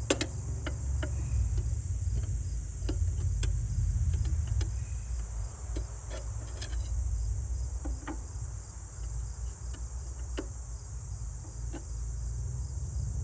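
Scattered light clicks and taps as the blade cover is fitted back onto the DeWalt 735 planer's cutterhead, the sharpest right at the start. Under them run a steady high chirring typical of crickets and a low hum.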